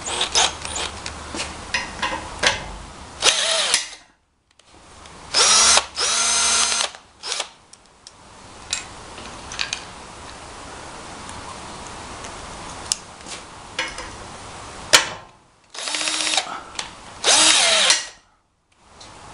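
Cordless drill driving a drill-mounted rivet tool in about five short runs, each one speeding up and slowing down, with clicks and rattles of handling the tool between the runs.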